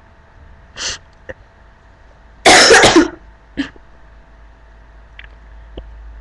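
A girl coughing with a sore throat: one loud cough burst about two and a half seconds in, lasting about half a second, after a shorter, fainter noisy sound about a second in.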